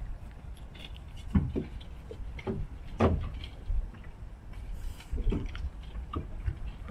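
Irregular knocks and thuds on the deck and fittings of a fishing boat at sea, over a steady low rumble of wind and water, the loudest knocks about a second and a half and three seconds in.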